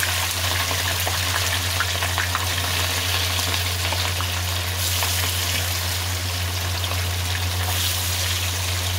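Oil sizzling steadily around spice-coated mackerel frying in a pan, with a few small crackling pops in the first couple of seconds. A steady low hum runs underneath.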